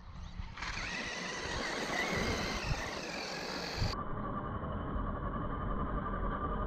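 Brushless electric motor of a Traxxas E-Revo 2.0 RC truck whining as it drives, with its tyres churning over the sand. About four seconds in the sound changes abruptly to a duller steady hum.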